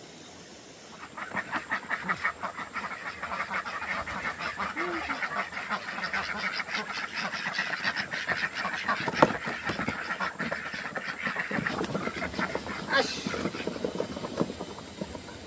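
A flock of farmyard waterfowl calling all at once in a dense, continuous clamour, starting about a second in.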